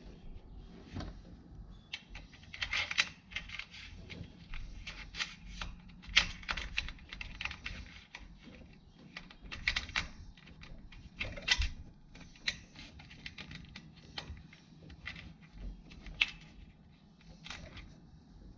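Irregular clicks, taps and light scrapes of small 3D-printed plastic mast gate parts being handled and pushed into the sail track of a sailboat mast, some taps much louder than others.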